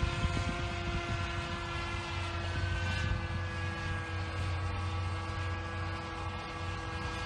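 Enya 40 glow engine of a radio-controlled twin-rotor autogyro, turning an 11x5 propeller in flight and holding a steady high whine over a low rumble.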